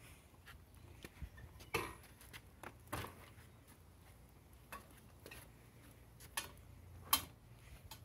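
Lectric XP folding e-bike's frame being folded at its hinge: scattered light metal clicks and knocks, the sharpest about seven seconds in.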